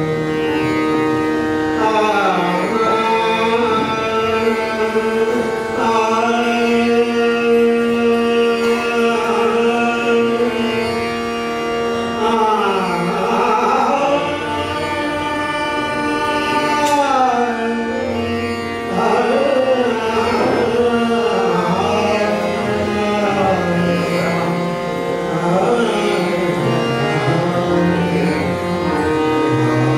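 Hindustani classical vocal music: a male singer holds long notes and glides slowly between pitches over a steady tanpura and harmonium drone, with tabla accompaniment.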